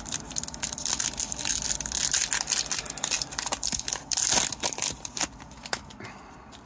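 Upper Deck hockey card pack wrapper being torn open and crumpled: a dense crinkling crackle of many small clicks that dies down near the end.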